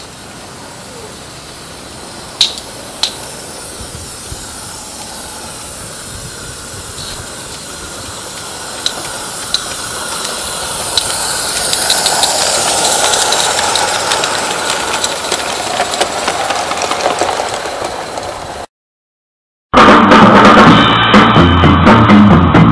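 Live steam garden-scale locomotive running past, its steam hiss and running noise growing louder as it draws near and easing as it goes by, with a few sharp ticks. Near the end it cuts to a second of silence, then rock music with guitar and bass starts.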